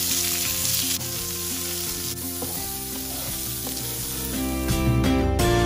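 Sliced onions sizzling in hot oil in a frying pan as they are stirred with a wooden spoon; the sizzle is strongest at first and eases off. Background music comes up louder near the end.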